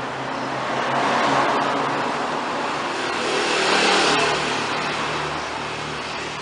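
A motor vehicle engine running, its noise swelling about a second in and again about four seconds in, then fading.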